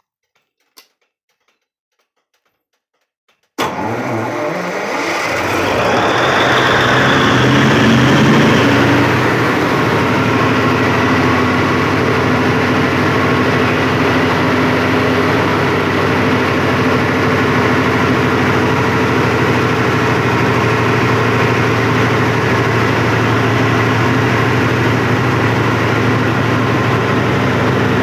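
Large Cummins diesel generator set, open with no enclosure, starting up: it cuts in suddenly about three and a half seconds in, rises in pitch for a few seconds as it comes up to speed, then runs loud and steady.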